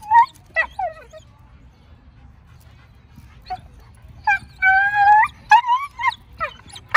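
Young Doberman whining and yelping in high-pitched cries as she fights having a basket muzzle put on. A few short yelps, a lull of a couple of seconds, then one long drawn-out cry about four and a half seconds in, followed by more short yelps.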